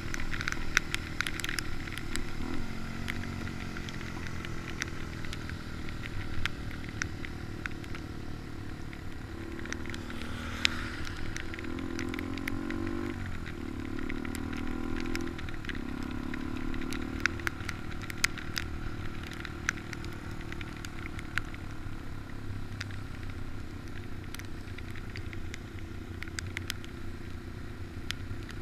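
Engine of a small Honda Dax minibike running steadily while it rides downhill, its pitch shifting a few times about a third to halfway through, with scattered sharp clicks and crackle over it.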